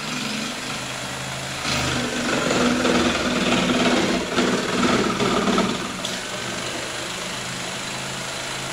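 Corded Skil jigsaw running at its fast setting, its blade cutting plywood. The cut grows louder and rougher about two seconds in and eases near six seconds, leaving the motor running steadily.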